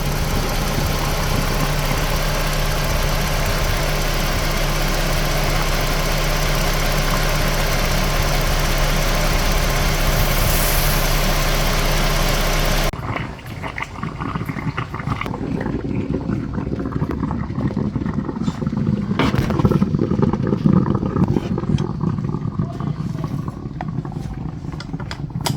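Dodge Journey's 2.7-litre V6 engine idling steadily, with its coolant boiling over because of a failed head gasket. About halfway through the engine sound cuts off abruptly, leaving quieter irregular clicks and knocks.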